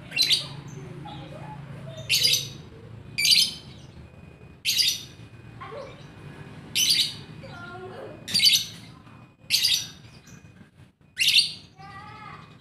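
Lovebird giving eight short, loud, high-pitched chirps, spaced about one to two seconds apart.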